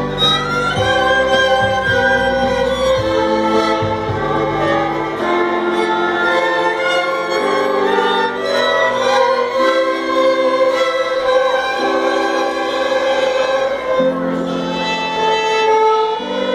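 Violin orchestra playing a slow piece in long held notes, the chords changing every second or two; a low bass part drops out about five seconds in.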